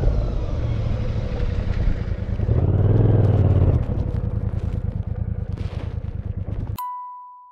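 Royal Enfield Bear 650's 648cc parallel-twin engine from the rider's seat, dropping in pitch as the bike slows. It rises briefly about three seconds in, then runs at low revs and gets quieter. Near the end the engine sound cuts off abruptly, and a single high chime rings and dies away.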